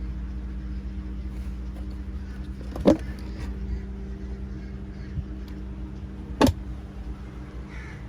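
Honda 3.0-litre VTEC V6 engine idling steadily, with two short, loud, sharp sounds about three seconds and six and a half seconds in.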